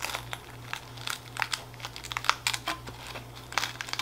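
Long metal tongs working through dry moss and cork bark to pull out a tarantula's shed molt: a run of small, irregular crinkles and clicks.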